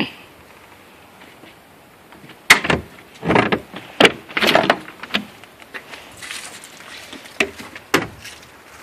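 Clunks and rattles of a Volkswagen Vanagon's engine-bay hatch being opened: a sharp knock about two and a half seconds in, a few clattering bumps after it, and two single clicks near the end.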